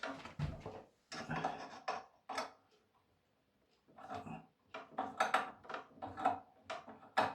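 Screwdriver and hands working a screw into a plastic stairlift cover: irregular clicks, scrapes and small knocks, with a pause of about a second and a half midway.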